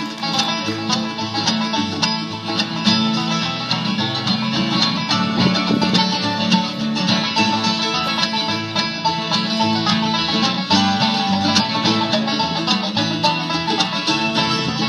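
Bluegrass band playing the instrumental introduction of a song: a continuous run of quickly picked string notes over a steady low accompaniment.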